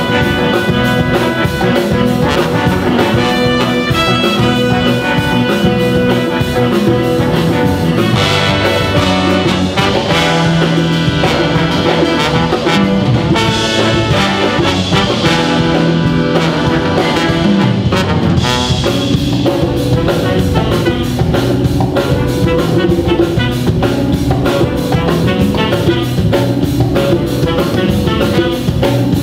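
Big band playing live: the brass section (trumpets and trombones) carries the melody over drum kit and rhythm section, in a jazz arrangement of a rock song.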